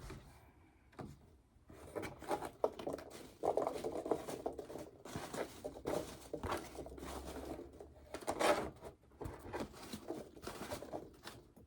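Hands digging through biodegradable foam packing in a box: soft, irregular rustling and pattering as the pieces shift, with a louder handful about two-thirds of the way through.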